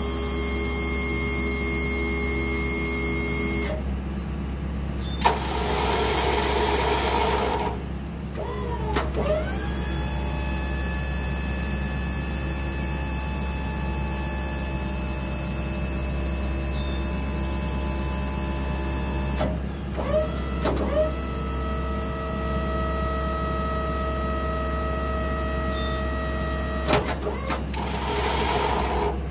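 Electric-over-hydraulic pump of a truck-mounted service crane running with a steady hum and whine as the boom is raised by wireless remote. A rougher rushing noise comes in about five seconds in and again near the end, with short clicks and brief shifts in pitch as functions switch on and off.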